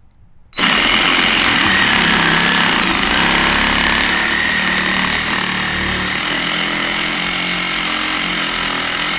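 Reciprocating saw (Sawzall) cutting through a car's drive shaft. It starts abruptly about half a second in and keeps running steadily without a break.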